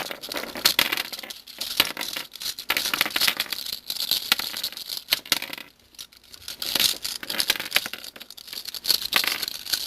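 Plastic pieces of a partly disassembled Meffert's 4x4 puzzle cube clicking and clattering rapidly as its layers are twisted and loose pieces work free, with a short pause about six seconds in.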